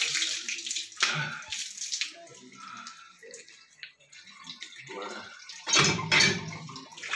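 Water splashing from a cast-iron hand pump as a man washes his face, with a louder gush near the end as the pump handle is worked.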